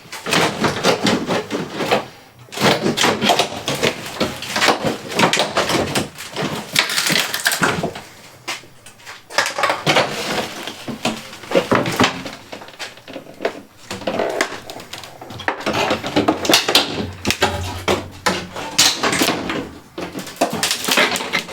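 Wooden packing-crate parts being handled: a busy run of knocks, clatter and scraping of plywood boards and panels, coming in stretches with short pauses.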